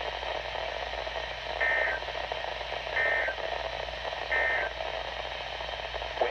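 EAS end-of-message data bursts from NOAA Weather Radio: three short two-tone digital squawks about 1.3 seconds apart over steady radio hiss, signalling that the alert has ended.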